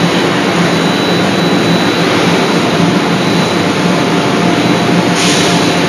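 Steady, loud rushing roar of forging-shop machinery and gas or air flow, with no hammer blows; a sharper hiss joins in near the end.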